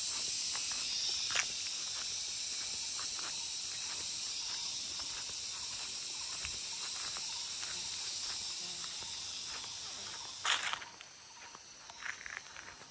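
A steady, high insect drone in the forest, with footsteps crunching on dry leaf litter along a dirt trail. About ten seconds in there is a louder crunch, then the drone drops away, leaving separate footsteps.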